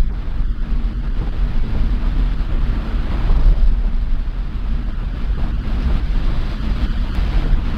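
Cabin noise inside a bus travelling in heavy rain: a steady low engine and road rumble under the hiss of tyres on the wet road and rain on the vehicle.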